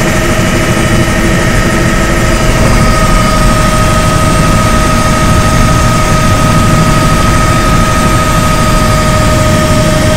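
Helicopter engine and rotor noise heard from inside the cabin in flight: a loud, steady din with a constant high whine over it that strengthens a little about two and a half seconds in.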